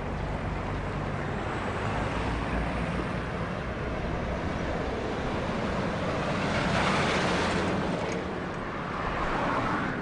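Steady road traffic noise, swelling louder about seven seconds in and again near the end.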